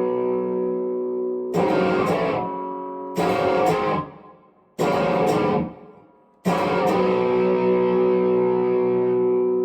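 Epiphone 1959 Les Paul Standard electric guitar played in chords. A chord rings out, then three short strummed chords are each choked off, the last two followed by silence. About six and a half seconds in, a final chord is struck and left to ring.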